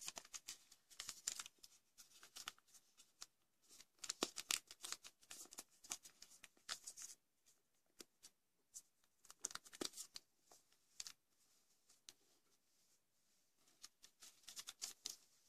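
A sheet of origami paper rustling and crinkling as it is folded and creased by hand: faint, scattered crackles in short clusters, with a quiet spell shortly before the end.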